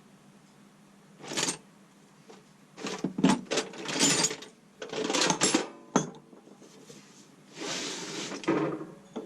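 Metal hand tools clinking and rattling against each other as they are handled, lifted out and set down, with a longer scraping sound near the end.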